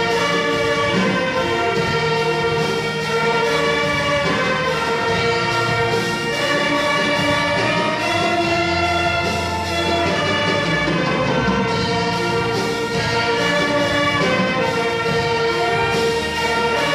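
Orchestra with brass playing a hymn instrumentally: held chords that move from one to the next at a steady loudness.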